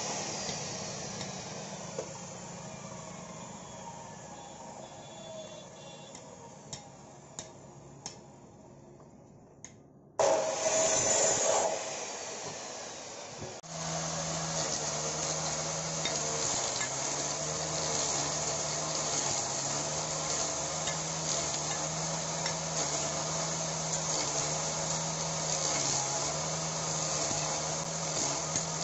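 An electric cut-off saw winding down after a cut, its whine falling in pitch, with a few sharp knocks of wooden logs being handled, then a short loud burst of the machine. From about fourteen seconds, a motor-driven wood-carving machine runs steadily, shaving a log pressed against its cutter, heard at double speed.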